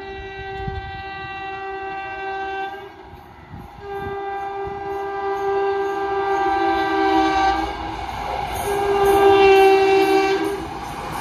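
WAP-7 electric locomotive's air horn sounding three long multi-tone blasts as the Karnavati Express approaches at high speed; each blast is louder than the one before, the last the loudest.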